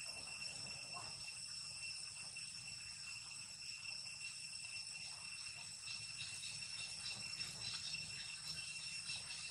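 Insects calling in a steady, unbroken high-pitched drone, several steady tones layered together.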